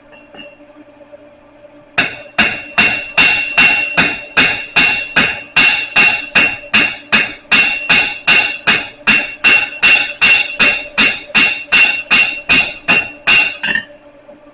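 Blacksmith's hammer striking steel on an anvil in a steady rhythm of about thirty blows, roughly two and a half a second, each with a high metallic ring. It starts about two seconds in and stops just before the end.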